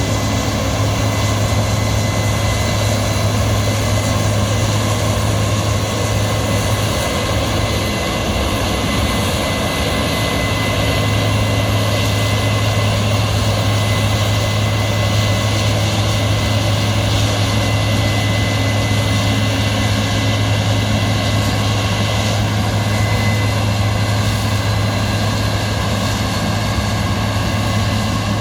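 Large farm diesel engine running steadily under working load, a constant low drone with a wide rush of machinery noise over it.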